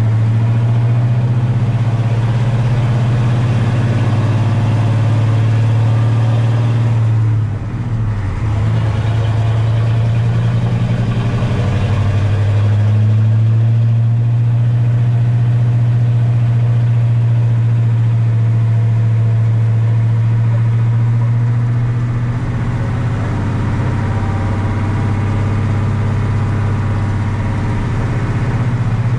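Truck engine running steadily as the truck drives, heard from inside the cab. Its note dips briefly about seven seconds in, then settles again.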